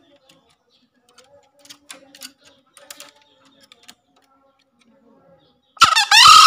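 Green junglefowl cock giving one short crow near the end, much louder than anything before it. Before that, faint scattered taps as it pecks at the floor of its bamboo cage.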